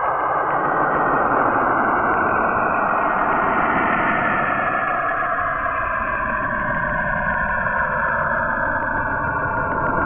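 Sonification of Saturn's auroral radio emissions recorded by the Cassini probe, with the radio waves shifted down into hearing range: a dense, steady hiss with faint bands of tone sliding slowly downward in pitch.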